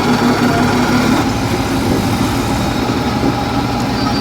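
Heavy diesel engine of earthmoving machinery running steadily, its note changing about a second in to a rougher, deeper rumble.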